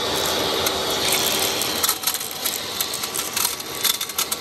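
Vacuum cleaner running steadily while sucking up pieces of shattered door-window glass, which rattle and click through the nozzle, the clicks coming thicker from about two seconds in.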